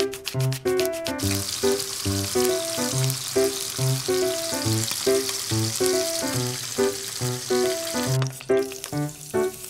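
Pieces of fish jaw sizzling as they pan-fry in hot oil in a non-stick frying pan; the sizzle starts about a second in and stops shortly before the end. Light background music with a steady beat plays throughout.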